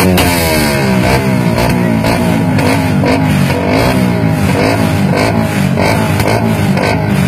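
Suzuki Raider 150 motorcycle with a loud aftermarket 'bombahan' exhaust pipe being revved. The revs drop right at the start, then the throttle is blipped up and down several times.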